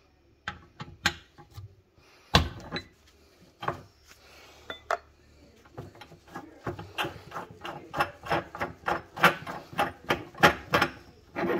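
Locking pliers and a hex bolt clicking and knocking against the metal of a Thermador gas burner as the brass venturi nut is worked loose. A few scattered sharp clicks at first, then a quicker, denser run of clicks from about six seconds in.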